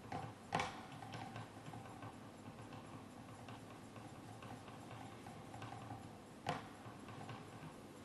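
Faint small ticks and light knocks of things being handled on a tabletop, with two sharper knocks about half a second in and about six and a half seconds in.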